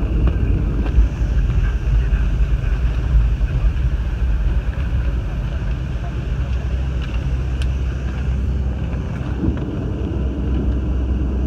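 Cabin noise of a jet airliner rolling along the runway just after landing: a steady low rumble of engines and wheels that eases slightly about halfway through.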